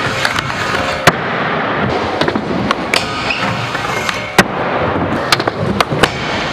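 Skateboard trucks grinding along a long metal flat bar, a steady scraping, with irregular sharp clacks of the board popping on and landing off the rail.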